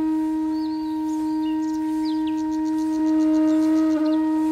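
Background music: one long, steady note held on a wind instrument.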